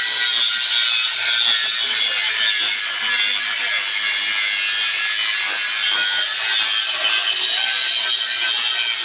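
Angle grinder with an abrasive disc grinding the end of a steel pipe, a steady, high-pitched grinding hiss. The pipe end is being bevelled into a V so the joint can be butt-welded.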